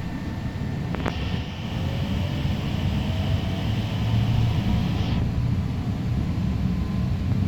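Interior running noise of an Ottawa Confederation Line Alstom Citadis Spirit light-rail train pulling away from a station, a low rumble that slowly grows louder as it picks up speed. A click comes about a second in, followed by a high whine that stops abruptly about four seconds later.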